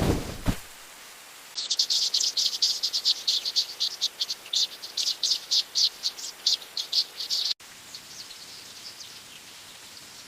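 A brief low thud, then rapid high-pitched chirping, about five chirps a second, that cuts off suddenly partway through and carries on faintly afterwards.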